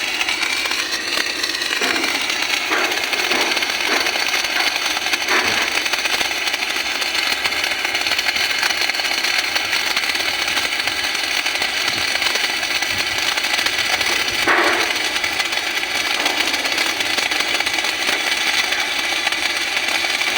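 MIG welding arc on a metal ventilation duct, a steady crackling hiss with a few short clicks.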